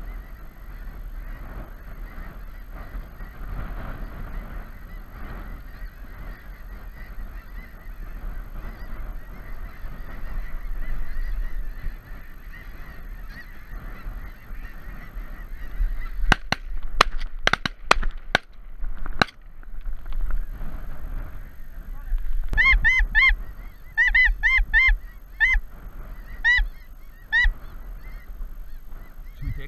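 A flock of snow geese honking: a steady chorus of many distant overlapping calls, then loud, clear single honks repeated in quick groups over the last several seconds. About halfway through, a quick run of about eight sharp clicks cuts across it.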